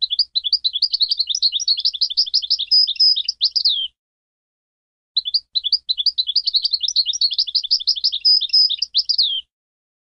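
European goldfinch singing: two near-identical phrases of rapid, high twittering notes, each about four seconds long, with a pause of just over a second between them.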